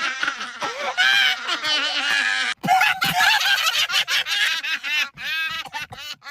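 High-pitched voice crying and wailing, the pitch wavering. About two and a half seconds in it breaks briefly, then goes on in short rising-and-falling sobs.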